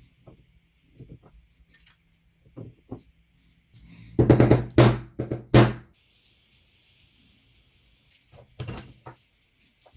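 A series of knocks and thuds: a few light ones, then a loud cluster of four or five heavy thuds about four to six seconds in, and a couple more near the end.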